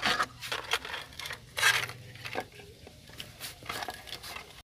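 Handling noise as objects are moved about in clutter: irregular clicks, knocks and rustling, with a louder rustling burst about one and a half seconds in.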